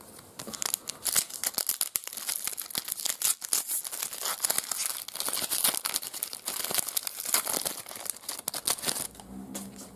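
Foil trading-card pack wrapper (Artbox FilmCardz) crinkling and tearing as it is ripped open by hand: a dense run of crackles that stops about a second before the end.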